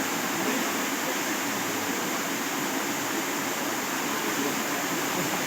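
Steady rush of water, an even hiss that holds level without breaks.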